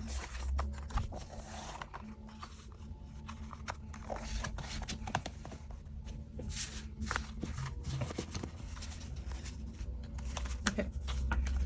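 Paper and card rustling, with many small clicks and taps, as a K-pop album's thick-paper booklet and inclusions are handled and leafed through.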